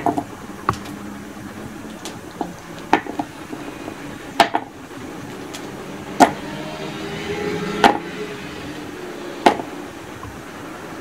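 Thick rubber-insulated grounding cables being handled, their metal ring terminals and terminal block clicking and clinking against each other and the surface at irregular moments, about nine sharp clicks in all. The cable rustles as it is dragged over cloth about two-thirds of the way through.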